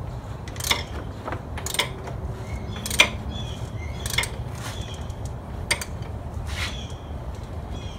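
A hand wrench turning the crankshaft of a Nissan 240SX's KA24DE engine, with a sharp click roughly once a second as it is worked in short strokes. The engine is being brought up to top dead centre so the piston compresses rope packed into the cylinder to hold the valves up.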